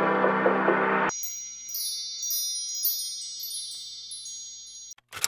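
Background music cuts off about a second in, followed by a shimmering chime sound effect for the logo card: high tinkling tones that ring and fade away over about four seconds.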